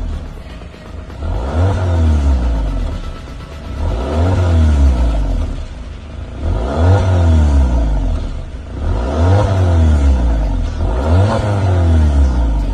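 Volkswagen Tiguan's 2.0-litre turbo four-cylinder, breathing through an aftermarket stainless steel mid pipe and valved muffler, revved about five times in a row. Each rev climbs in pitch and falls back, with a deep exhaust boom.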